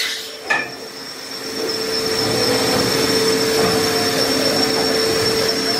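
Okuma MILLAC 800VH 5-axis CNC machining center working: a sharp clunk about half a second in as an enclosure shutter beside the spindle head moves to close. Then the machine runs with a steady whine and hum that grows louder from about a second and a half in.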